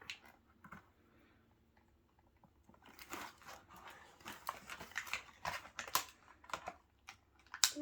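Plastic doll packaging and small accessories being handled: a quick, irregular run of crinkles and clicks that starts about three seconds in.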